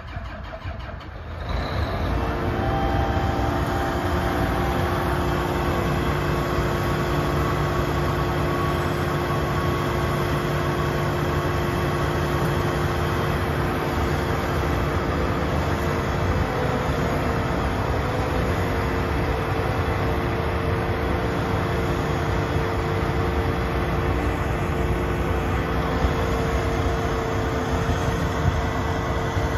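John Deere S780 combine harvester's diesel engine running steadily, a low rumble under a steady multi-tone whine. It grows louder about a second and a half in, then holds level.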